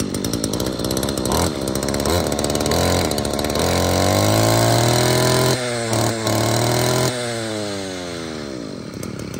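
Stihl FS24C 24cc two-stroke brush cutter engine running after a pull-start, throttle blipped a few times and then opened wide: the revs climb to a high steady whine with two brief dips, then fall back toward idle near the end.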